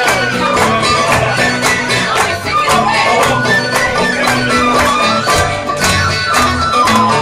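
Live traditional tune on tin whistle, banjo and guitar: a high, ornamented whistle melody over steady banjo picking and strummed guitar chords.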